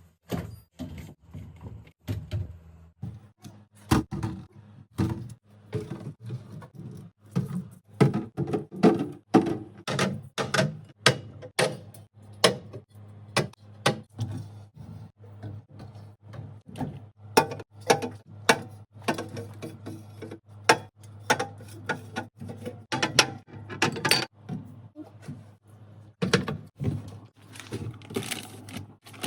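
Food containers, jars and bottles being set down on fridge shelves and in door bins: a long, irregular run of thunks, knocks and light clinks, over a steady low hum.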